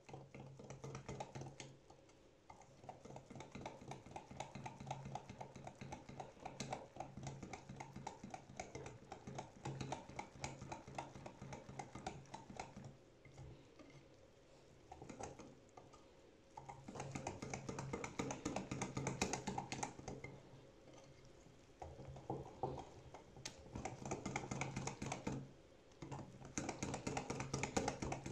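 Cake batter being beaten in a mixing bowl: fast, dense clicking of the utensil against the bowl, in several spells of a few seconds each with short pauses between.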